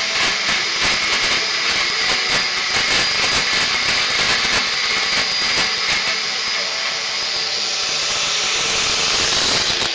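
Steady, loud hissing and crackling of a power tool cutting metal away from a snowmobile engine's counter sprocket, with a faint steady whine. It cuts off abruptly at the very end.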